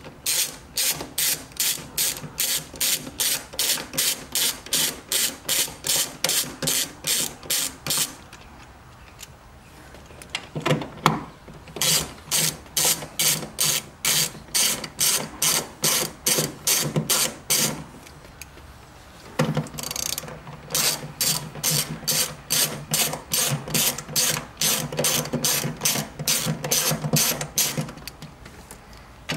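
Hand socket ratchet clicking steadily, about three to four clicks a second, as 10 mm nuts are backed off. The clicking pauses twice for a couple of seconds, about a third of the way in and again about two-thirds of the way in, then resumes.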